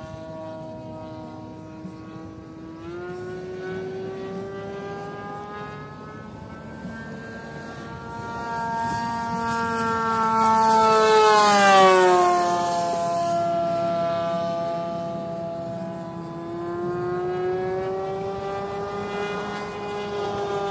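Radio-controlled Corsair model plane's motor and propeller whining in flight, the pitch slowly wavering as it manoeuvres. About halfway through it grows loudest, then drops in pitch as the plane passes close by.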